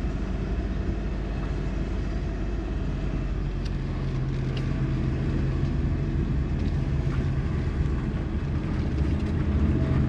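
Suzuki Kei Works kei car heard from inside the cabin, driving slowly with a steady low engine hum and road noise. The engine note gets a little stronger midway. The groaning 'goo' drivetrain noise is absent, a sign that the new viscous coupling has cured it.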